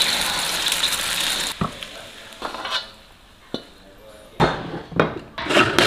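Egg and sliced green chilies sizzling in hot oil in a wok while chopsticks stir, cutting off suddenly about one and a half seconds in. After that come a few separate knocks and, near the end, a burst of clattering.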